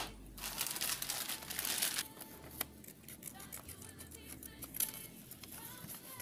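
Coloured craft paper being handled, rustling and crinkling, loudest in a long rustle near the start, then softer paper taps and rustles. Faint background music underneath.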